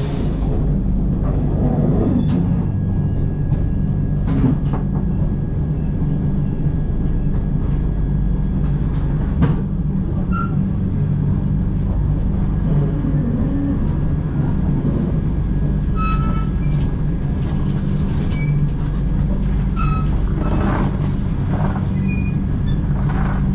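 Passenger train coach rolling into a station, heard from inside: a steady low rumble of wheels on track, with scattered clicks and knocks over rail joints and a few brief high squeaks.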